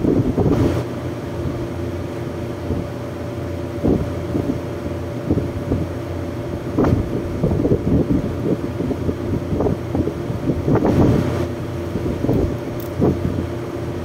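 Steady hum of air-conditioning condensing units running, with scattered knocks and rustles from hands working in an open unit's wiring and panel.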